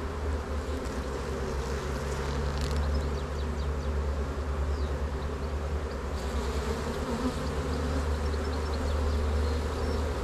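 Honeybee colony buzzing steadily around an open hive while its frames are lifted out for inspection, with a low rumble underneath.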